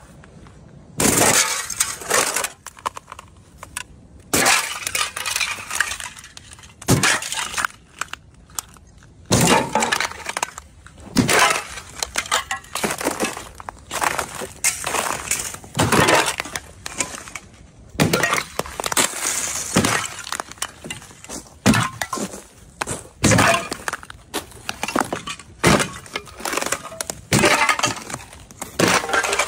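Thin sheet ice over a frozen puddle cracking and shattering underfoot, step after step, roughly one crunch a second.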